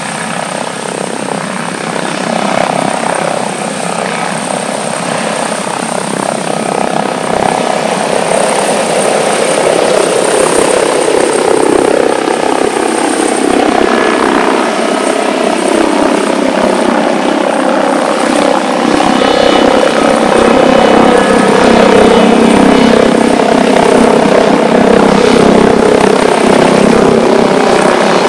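Airbus H145 D3 helicopter running, its twin turboshaft engines and five-blade rotor giving a dense mechanical drone with a thin, steady high whine, growing steadily louder. Further higher tones join in about two-thirds of the way through.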